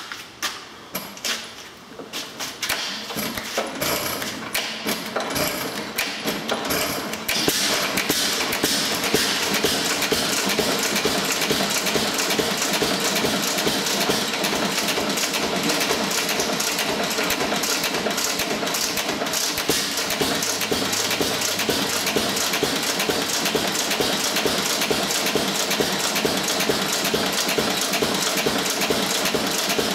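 Cooper Stover 6 hp type KC single-cylinder stationary engine starting up as its flywheel is turned by hand. The first few firing knocks come slowly and then quicken, and from about seven seconds in it settles into a loud, steady, rapid beat.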